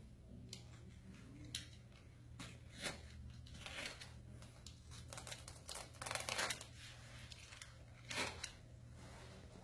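Hand cast shears cutting through a white leg cast: a string of irregular snips, with a longer stretch of cutting about six seconds in.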